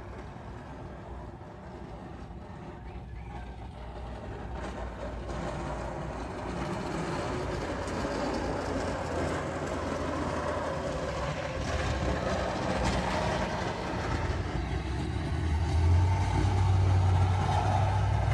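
A motor vehicle's engine, growing steadily louder with a low hum that is strongest near the end.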